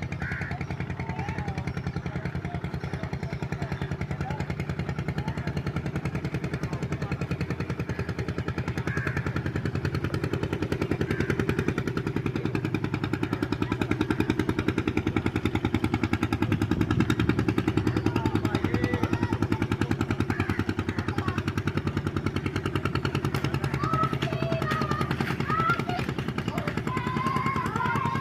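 Fishing boat's engine running with a steady, rapid beat, growing a little louder toward the middle.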